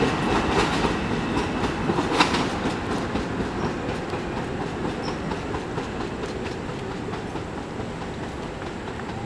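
Bombardier M7 electric multiple-unit train pulling away down the track, its wheels clicking over the rails, the sound fading steadily as it moves off.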